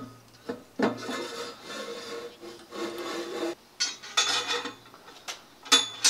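Metal parts being fitted onto a steel drill-press column: a cast collar and toothed steel rack scraping and rubbing against the column, then several short, sharp metal clinks in the second half.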